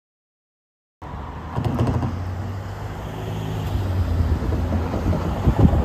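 Silent for about a second, then road traffic: cars and a pickup driving past on the road beside the crossing, with a steady low engine hum growing a little louder toward the end.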